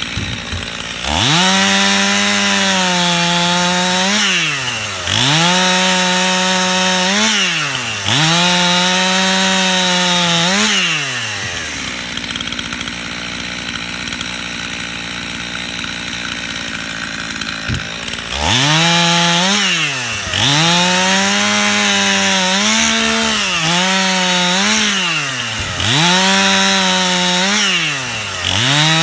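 Stihl two-stroke chainsaw cutting limb firewood: the engine revs to full throttle for two to three seconds at a time, with short drops between cuts. Three cuts come first, then the saw idles for about seven seconds, then about five more cuts follow.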